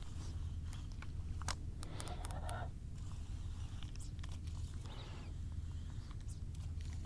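Scattered small clicks, taps and rustles of fishing tackle and a caught fish being handled, over a low steady rumble.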